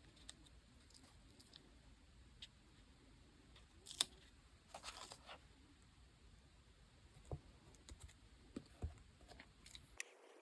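Quiet, sparse clicks and taps of stationery and paper being handled while decorating a diary, with a sharper click about four seconds in and a short scratchy rustle just after.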